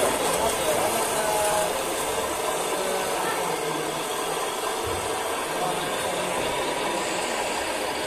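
Radio-controlled scale construction machines running: a steady, noisy whir of small electric motors and hydraulic pumps, with a few faint whining tones in the first two seconds.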